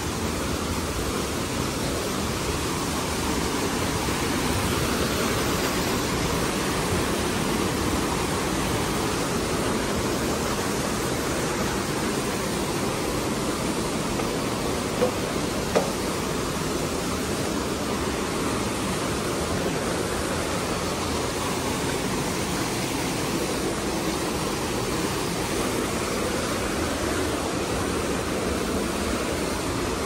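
Steady rushing of a waterfall and its stream, with two brief knocks about halfway through.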